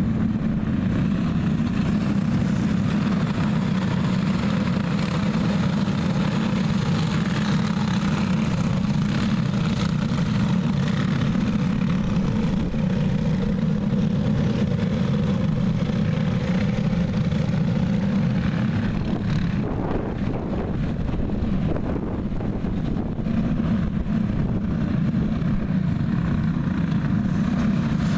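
A pack of dirt-oval racing karts, powered by single-cylinder four-stroke clone engines, running together in a steady, continuous drone as they circle the track.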